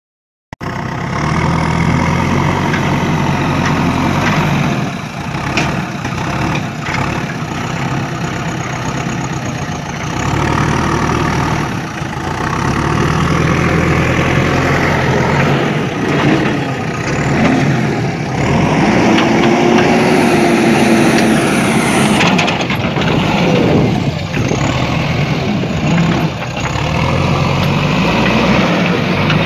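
A heavy vehicle's engine running, starting abruptly about half a second in and then holding at a steady level, with its pitch rising and falling in places.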